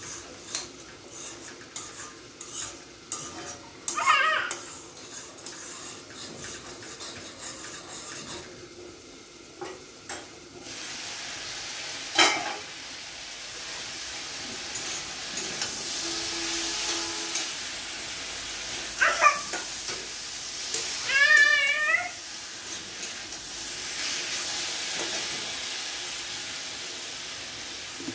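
Food frying in hot oil in a kadai on a gas stove: a steady sizzle sets in suddenly about ten seconds in, while a spatula stirs and clinks against the pan. Light utensil knocks come before it, and a few short high-pitched cries rise and fall over the frying.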